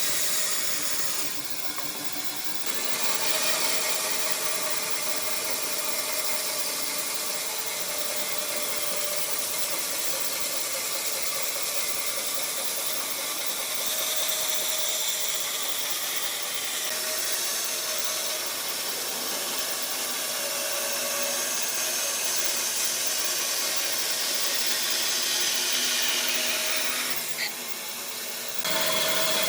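A power tool running steadily against wood, easing off briefly about two seconds in and again near the end.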